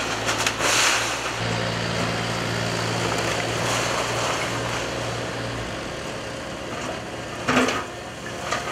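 Komatsu tracked excavator's diesel engine running under load as its bucket pulls down old brick walls, the engine working harder from about a second and a half in until past halfway. Bricks and rubble crash down about a second in and again, loudest, near the end.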